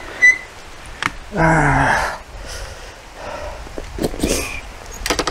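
Two short high beeps at the start, then a man's short sigh, among rustling and clicks of camera and microphone gear being handled and packed away.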